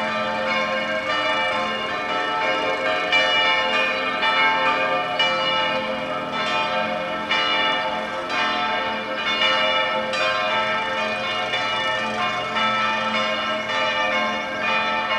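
Several church bells pealing together, their strokes overlapping irregularly about once a second, each leaving a long ringing tone.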